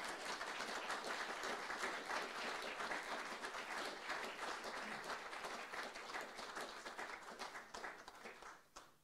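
Audience applauding: many hands clapping in a dense patter that tails off near the end.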